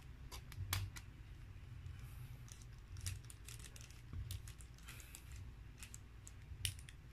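Faint, irregular clicks and light taps of a Ulanzi MT-04 octopus tripod and its detachable metal ball head being handled and turned in the hands.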